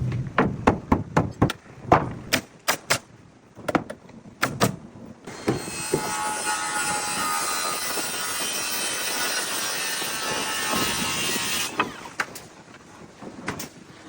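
Wall framing being nailed: a run of sharp, irregular knocks of nails being driven into framing lumber for about five seconds, then a steady rushing noise lasting about six seconds, then a few more knocks near the end.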